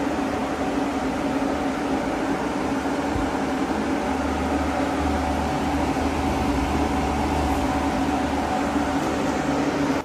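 Cooling fan and small water pump of a home-built Peltier water-cooled air conditioner running: a steady whirring hum with a steady low tone.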